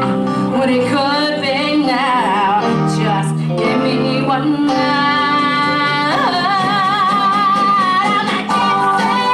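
A woman singing a rock show tune with a live band, heard from the audience. From about halfway through she holds one long note with vibrato over sustained chords.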